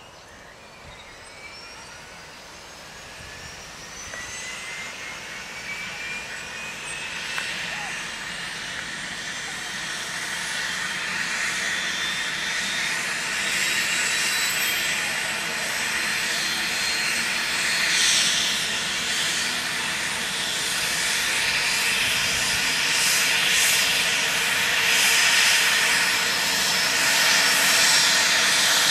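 Air ambulance helicopter's turbine engine spooling up on the ground before takeoff: a whine that rises in pitch over the first few seconds, then turbine whine and rotor noise growing steadily louder.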